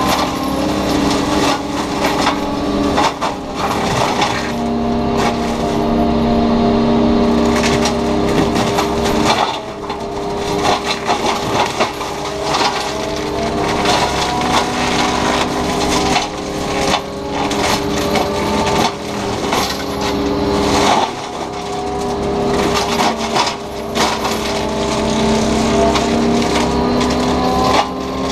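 Takeuchi TB290 excavator running an FAE forestry mulching head, its rotor chewing through roadside brush and wood with constant cracking and snapping. The machine's steady pitched hum dips under load and climbs back again and again as the drum bites in and recovers.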